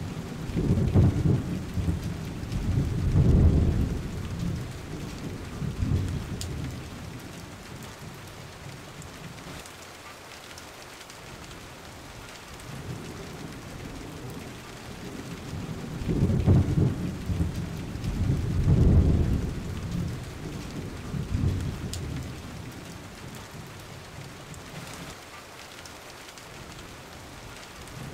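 Rain and rolling thunder from a storm ambience track: a steady hiss of rain with deep rumbles swelling about a second, three and six seconds in, and the same rumbles coming back some fifteen seconds later, as the track loops.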